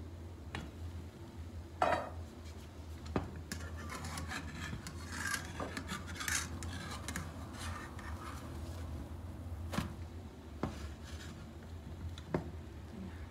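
Pan lid and a slotted metal turner knocking and clinking against a frying pan, with a few sharp clanks, the loudest about two seconds in. In the middle stretch the turner scrapes and rubs against the pan under a scrambled-egg omelette.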